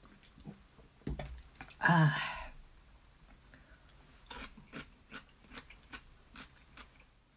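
Eating with chopsticks: light clicks and taps of chopsticks on ceramic, with chewing, in a small room. One louder, short pitched sound comes about two seconds in, and a run of quick clicks follows from about four seconds.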